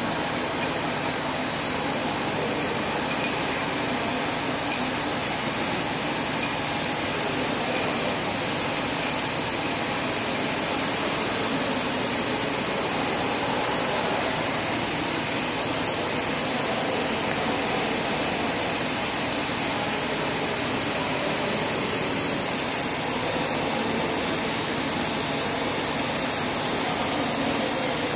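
TIG welding arc burning steadily on 316 stainless steel pipe: a continuous, even hiss with no breaks.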